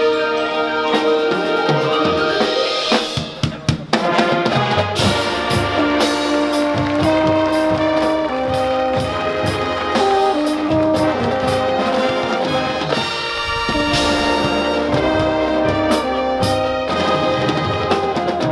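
Marching band playing a field show: brass sustaining chords over drum line and front-ensemble percussion. About three seconds in the band drops out briefly, leaving a few separate drum hits, then the full brass comes back in.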